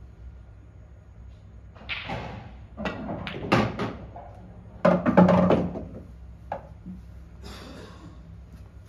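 Pool balls struck and clacking together in a series of sharp knocks and thuds, loudest about five seconds in, with an object ball dropping into a pocket and running down the table's ball return. A lone click follows a little later.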